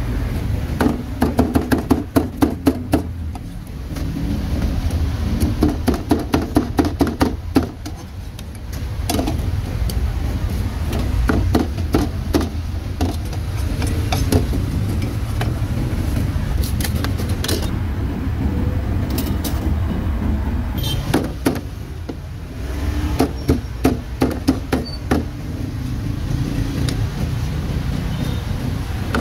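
A cleaver chopping roast meat: quick runs of sharp knocks, about four or five a second, in several bursts with pauses between, over a steady low rumble of street traffic.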